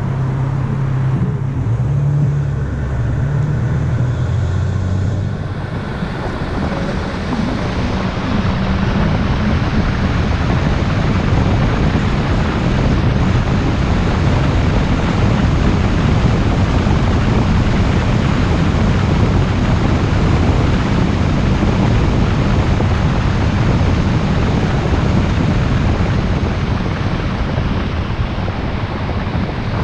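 Car driving on a road: a low engine hum for about the first five seconds, then a steady rush of road and wind noise on the microphone.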